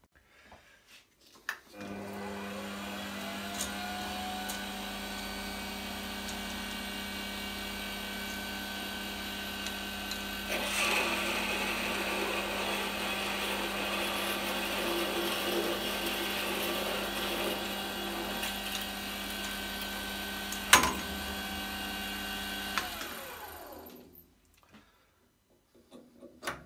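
A metal lathe starts about two seconds in and runs up to a steady hum. From about ten seconds in, a twist drill held in the tailstock chuck cuts into the end of the spinning threaded rod, boring the hole for the motor shaft, and a cutting noise rides over the hum. There is a sharp click about twenty-one seconds in, the lathe spins down near the end, and a few small handling clicks follow.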